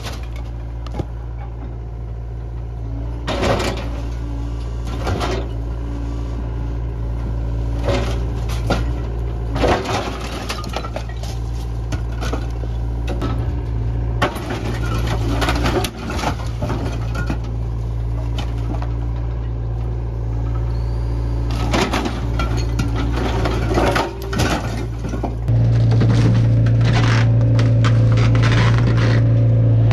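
Hydraulic excavator's diesel engine running steadily while its bucket and thumb tear into a cinder-block and timber building, with scattered crunches and cracks of breaking block and wood. Near the end the engine drone turns abruptly louder and stays there.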